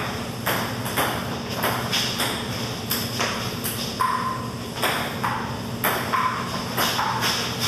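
Ping pong rally: the celluloid ball clicking off paddles and the table in quick succession, about two hits a second.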